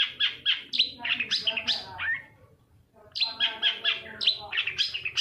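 Long-tailed shrike (cendet) singing fast runs of sharp, chirping and sweeping notes. The song breaks off about two seconds in and starts a new run about a second later.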